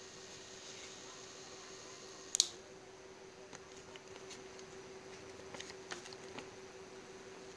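A paper banknote handled and flexed, with a sharp snap about two seconds in and a few soft crinkles later, over a steady faint hum.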